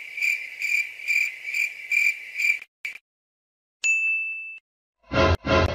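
Cricket-chirping sound effect, an even pulse of about three chirps a second that cuts off suddenly, followed by a single bright ding that rings out. Near the end come two short, loud pitched blasts of another sound effect.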